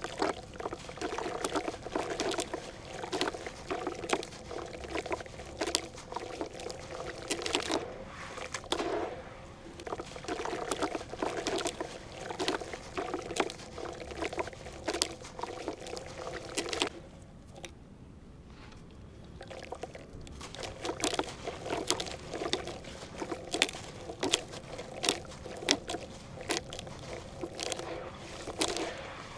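Crunchy crumbling of dry floor pieces with water: dense crackles and small clicks mixed with wet, pouring sounds. It stops for about three seconds a little past the middle, then resumes.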